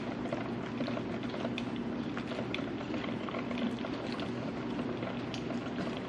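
Mr. Coffee 12-cup drip coffee maker brewing: steady bubbling and crackling of water being heated and pushed up to the filter basket.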